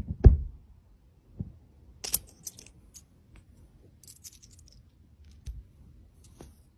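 Small metal coins clicking and clinking lightly a few times, after a dull thump about a quarter-second in.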